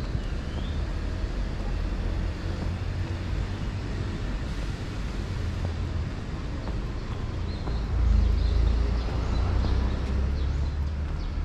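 Outdoor ambience: a steady low rumble that swells about eight seconds in, with a few faint high chirps over it.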